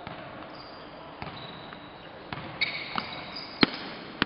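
A basketball being dribbled on a gym court: a handful of sharp, irregular bounces, the loudest about three and a half seconds in, with brief high sneaker squeaks in between.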